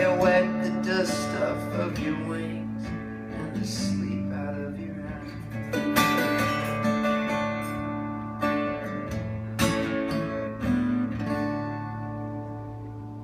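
Acoustic guitar playing the closing chords of a song, a few strummed chords ringing on, with the last chord held and slowly fading near the end.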